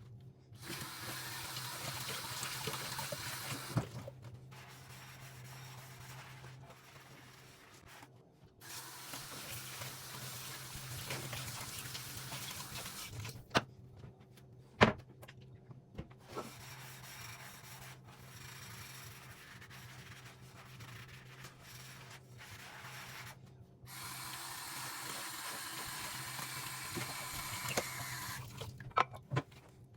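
Water running from a kitchen tap in several spells, turned on and off, with a few sharp knocks and clatters between the spells.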